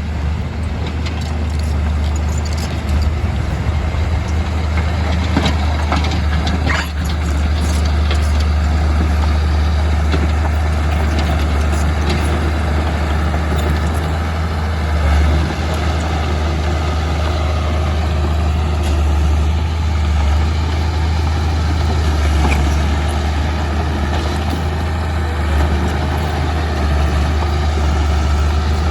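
Komatsu D31P bulldozer's diesel engine running steadily under load with a deep drone, and a few sharp clanks and rattles of stone and steel about six to seven seconds in.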